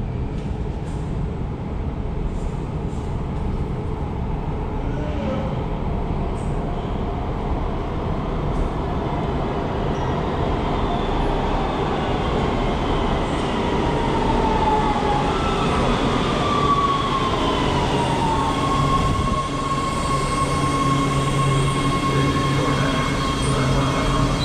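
Los Angeles Metro subway train (Breda-built heavy-rail cars) approaching through the tunnel and pulling into an underground station. A low rumble builds, then falling whines sound as it slows, and a steady whine holds as it comes to a stop.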